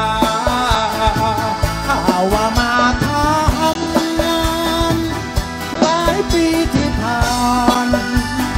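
Live band music: a lead melody in long held, wavering notes over bass and hand-drum beats.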